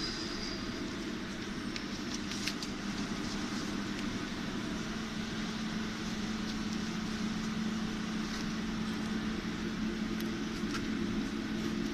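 High-frequency PVC welding machine humming steadily, with a few faint clicks.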